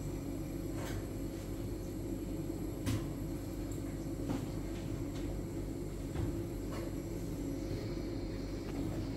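A handful of light, sharp knocks and clicks, the loudest about three seconds in, over a steady low rumble.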